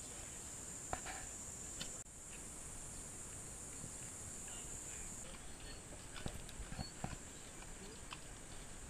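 Steady high-pitched insect buzz, with scattered faint clicks and knocks.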